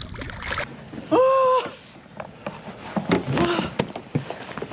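A man's loud held yell about a second in, lasting about half a second. It is followed by brief voices and scattered knocks and clatter of handling on the boat.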